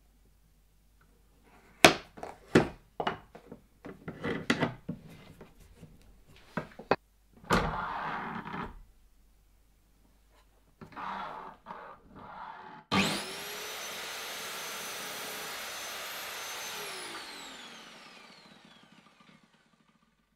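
Sharp knocks and clatter of a wooden strip being handled and set against the fence of a sliding compound miter saw, with a brief scrape. About two-thirds through, the saw's motor starts with a quick rising whine, runs steadily for about four seconds through a cut, then winds down with falling pitch after the trigger is released.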